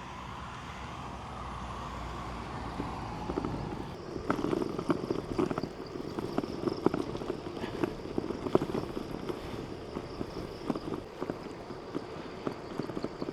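Bicycle riding noise: a steady hum for the first few seconds, then from about four seconds in a dense, irregular run of clicks and crackles, like tyres crunching and the bike rattling over a rough surface.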